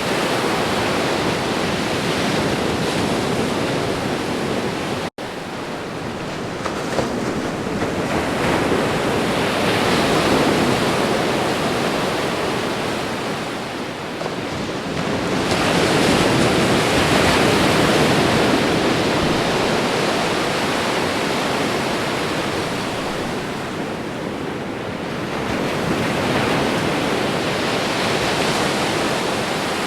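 Ocean surf: waves breaking and washing up the shore, a continuous rush that swells and fades in long surges every several seconds. The sound cuts out for an instant about five seconds in.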